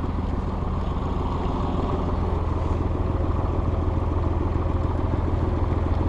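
Farm tractor's diesel engine running steadily with a deep hum, growing slightly louder partway through.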